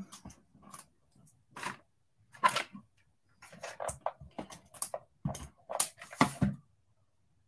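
Small paper pieces and craft tools handled on a desk: a string of about a dozen short rustles, taps and clicks with quiet gaps between them, loudest around the middle and again near the end.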